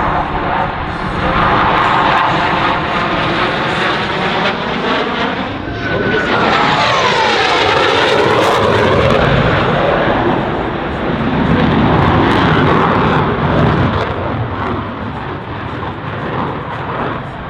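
Boeing F/A-18 Hornet jets of the Blue Angels making low passes: a loud jet roar that swells and fades several times. A whine drops in pitch about six seconds in as a jet goes by.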